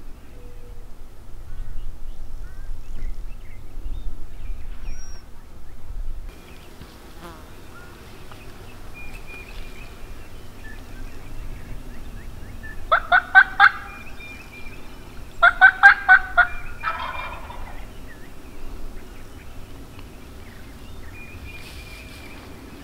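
Wild turkey tom gobbling twice, about two and a half seconds apart, each gobble a quick rattle of notes.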